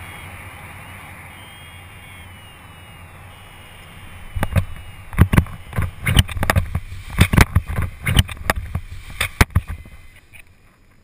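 Wind rushing over a helmet-mounted microphone as a paraglider comes in low to land, then a run of irregular loud thumps and buffets during touchdown, settling to a quieter stretch once the pilot is standing.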